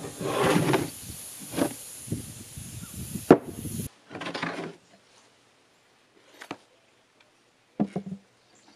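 OSB wooden box being handled and set down on a wooden bench: a series of separate wooden knocks and scrapes, the sharpest about three seconds in, over a steady hiss that cuts off suddenly about four seconds in.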